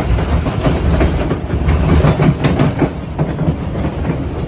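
Passenger train running, its wheels clattering over the rail joints over a steady low rumble.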